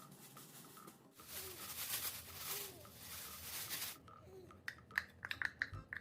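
Kitchen work sounds: a rushing hiss for about three seconds, then a quick run of sharp clinks of tableware near the end.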